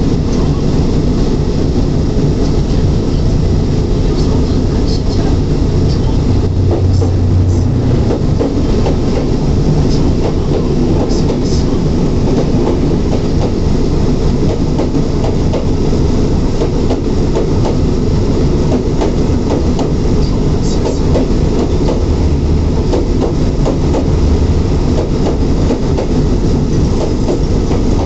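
Canadian-built Class M4 diesel locomotive heard from on top of it: a loud, steady engine drone, with train wheels clattering over rail joints.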